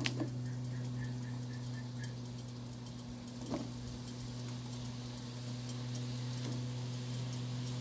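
Slices of raw potato being laid into a pan of hot oil on a gas stove, with a faint sizzle, a few light taps as the slices go in, and a steady low hum.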